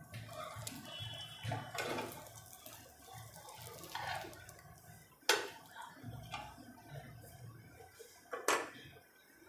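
Uttapam cooking in oil on a hot pan, crackling and sizzling, with a metal spatula scraping and tapping against the pan a few times; the sharpest knocks come about five and eight and a half seconds in.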